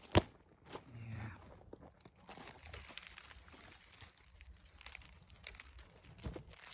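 Leaves and twigs rustling and crackling as hedgerow vegetation is pushed and handled, with a sharp snap just after the start and a few smaller clicks near the end.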